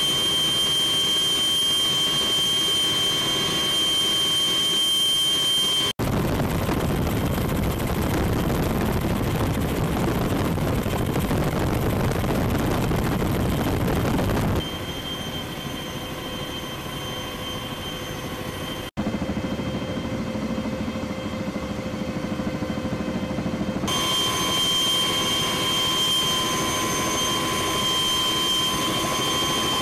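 CH-46E Sea Knight tandem-rotor helicopters in flight, heard from aboard: rotor and engine noise with a steady high turbine whine. The sound changes abruptly several times, with a stretch of dense rushing noise in the first half and a quieter stretch just past the middle.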